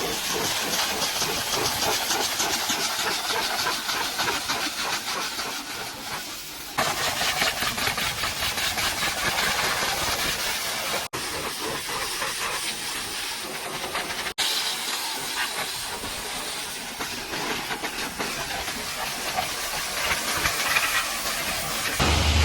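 High-pressure washer jet spraying against a truck's body, a loud steady hiss of water that breaks off or jumps abruptly a few times.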